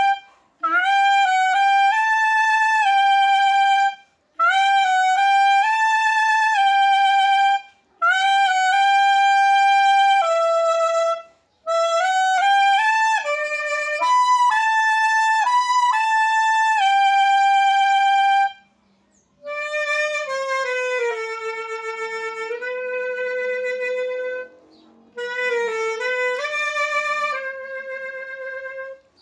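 Solo clarinet playing a slow hymn melody, one note at a time, in phrases with short breaks for breath between them. About twenty seconds in, the tune drops to a lower register and plays a little softer.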